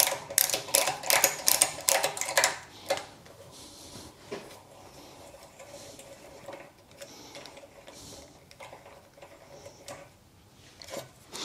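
Rapid mechanical clicking from a hand tap wrench as a Helicoil thread-repair tap is wound back out of a freshly cut thread in an aluminium cylinder head. The clicks come thick and fast for about three seconds, then turn fainter and sparser.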